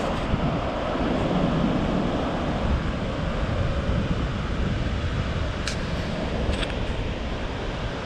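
Wind buffeting the microphone over ocean surf on the shore, a steady noise with two faint clicks late on.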